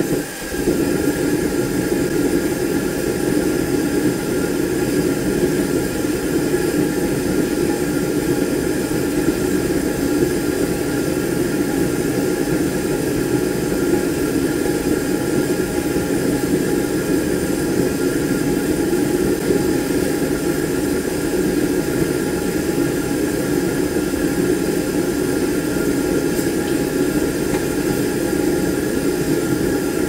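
Gas forge burner running steadily, a constant rush of flame, while a steel knife blank heats to a dull red for normalising.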